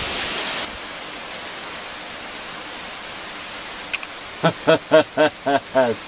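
Steady rushing of a waterfall, with a louder burst of hiss in the first moment that cuts off suddenly. Near the end a voice gives a quick run of six short sing-song syllables, about four a second.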